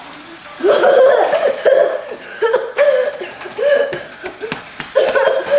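A child coughing and gasping in a run of short vocal bursts, starting about half a second in: a play-acted fit of exhaustion.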